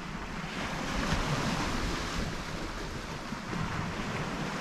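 Waves washing on the shore as a steady rush, swelling a little about a second in, with wind on the microphone.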